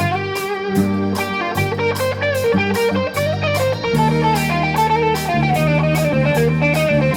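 Rock band playing live in an instrumental passage without singing: electric guitar over bass guitar and drums keeping a steady beat.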